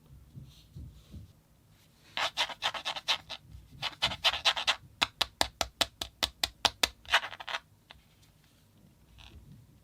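Hands handling packaging or a small phone: two stretches of scratchy rubbing, then a quick run of about a dozen sharp clicks at roughly four a second, then one more short rub.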